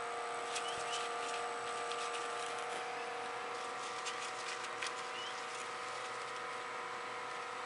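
A steady hum of several held tones, with faint scattered clicks and a few short, high rising chirps over it.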